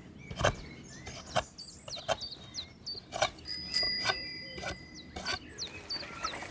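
A pocket knife whittling a wooden stick, in short scraping cuts every half second to a second, with birds chirping. Around the middle a bicycle bell rings for about two seconds.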